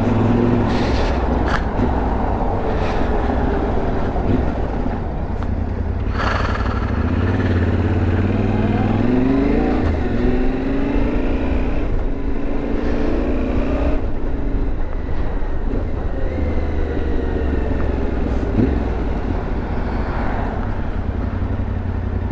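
Yamaha Ténéré 700's parallel-twin engine pulling a motorcycle through its stock exhaust, a brand-new engine still being run in. Revs rise and fall as it is ridden, over a rush of wind noise.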